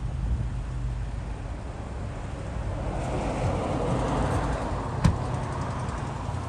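Road traffic: a vehicle passes, its noise swelling and fading over a couple of seconds above a steady low rumble. There is one sharp click about five seconds in.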